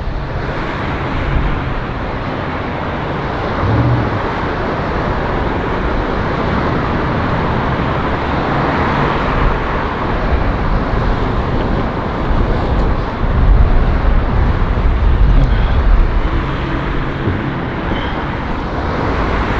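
Strong wind buffeting the microphone with a heavy, uneven rumble, mixed with the noise of road traffic going by. The rumble swells about two-thirds of the way through.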